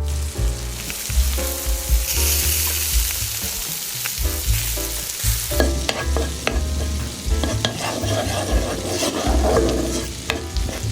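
Food sizzling in a frying pan over background music, then, from about halfway, clicks and stirring in the pan.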